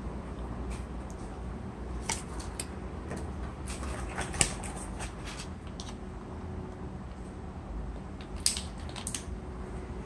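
Handling noise from unpacking a phone's accessories: a USB cable's plastic wrapping crinkling and the cardboard box clicking under the hands. The crinkles and clicks come in scattered clusters, the biggest around the middle and another near the end.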